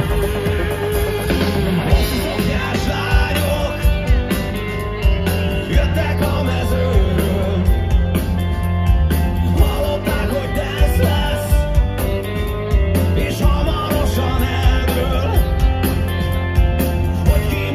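A rock band playing live at loud volume, with a male singer, electric guitar and a steady, heavy bass and drum beat.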